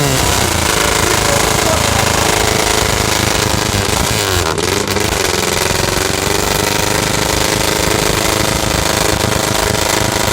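Off-road vehicle's engine running hard and loud, its revs dropping and climbing again a little after halfway.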